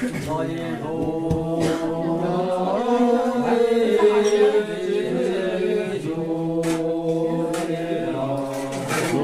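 Voices chanting in long held notes that shift pitch every few seconds, with a few short sharp strikes over them.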